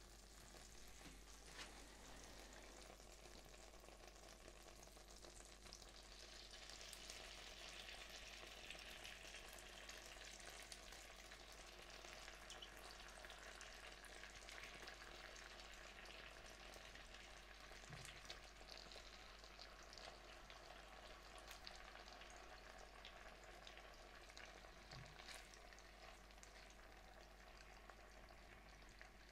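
Butter foaming and sizzling faintly in a wok pan, with a few light taps as ravioli are laid into it with a spatula.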